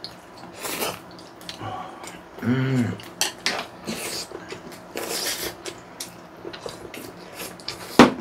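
Noodles being slurped and chewed at a table, in repeated short hissy slurps, with chopsticks and dishes clinking. A short hummed vocal sound comes about two and a half seconds in, and a sharp clink near the end is the loudest sound.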